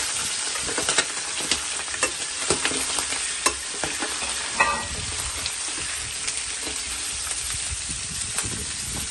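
Pork ribs, chicken and rabbit sizzling steadily in oil in a paella pan while being stirred, with scattered sharp crackles and clicks and a brief scrape about halfway through.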